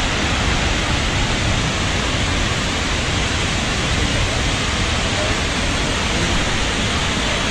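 Large waterfall in full monsoon flow: a loud, steady rush of falling water.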